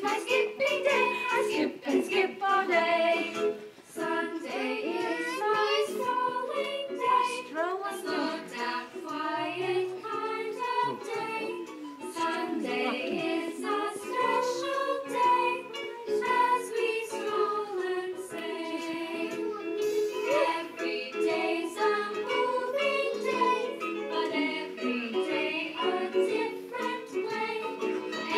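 A children's song playing, with a group of voices singing over the music.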